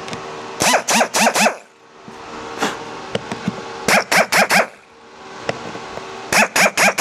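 A dog barking in three quick bursts of four or five barks each, over a steady background hum.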